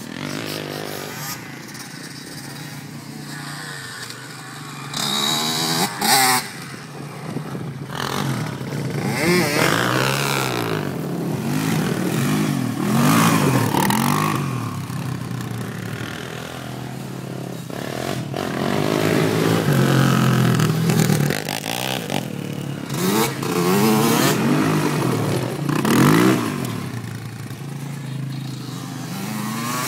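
Quad bike engine revving up and down over and over as it spins on a dirt yard, with a few louder bursts of noise.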